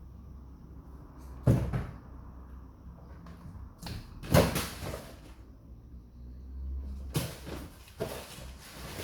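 A handful of sharp knocks and bangs a few seconds apart, the loudest about a second and a half in and again near the middle, with a couple more near the end.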